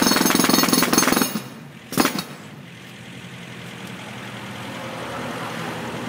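Jackhammer breaking pavement with rapid, even hammering that stops about a second in. A single sharp clank follows, then an engine idles steadily.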